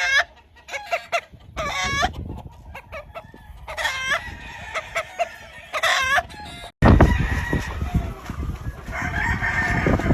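Several gamefowl roosters crowing one after another, each crow lasting about half a second. About two-thirds of the way through the sound cuts off abruptly. It comes back louder, with a low rumbling noise and more chicken calls near the end.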